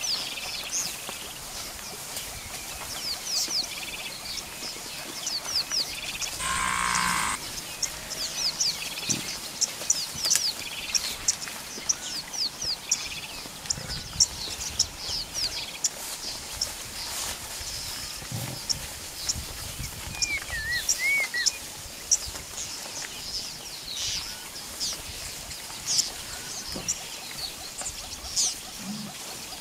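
African bush ambience full of many short, high, falling bird chirps, with a harsh rasping call of about a second some seven seconds in and a short whistled glide around twenty seconds in. Occasional soft low grunts come from the grazing Cape buffalo herd.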